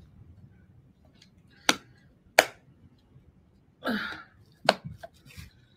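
Three sharp clicks spread over a few seconds, the second the loudest, with a short rustling burst just before the third and a couple of faint ticks after it.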